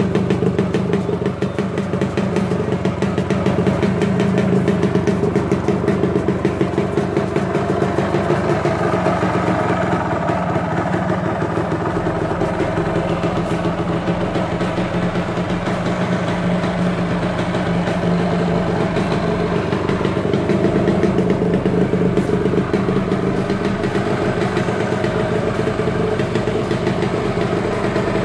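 Yamaha RXZ single-cylinder two-stroke engine idling steadily through its original stock exhaust, with the rapid, even pulse of a two-stroke.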